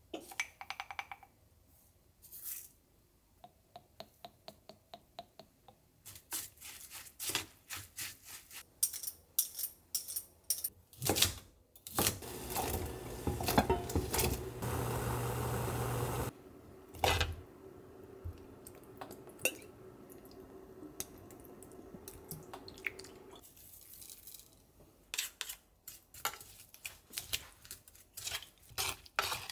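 Kitchen prep sounds: utensils and dishes clicking and tapping, with a few seconds of loud steady rushing noise about halfway. Near the end a wooden spoon mixes asparagus and seasoning in a wooden bowl in quick soft clicks.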